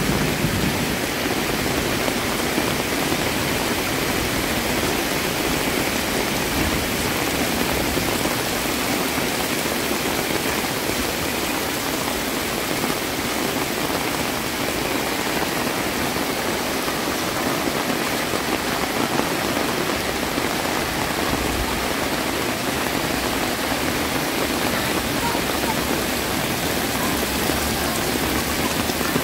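Heavy rain pouring down with a steady, dense hiss that holds even throughout.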